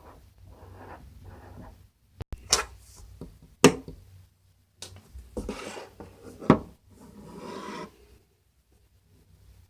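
Hands squishing and stretching slime: soft sticky rubbing with several sharp pops, the loudest about three and a half and six and a half seconds in.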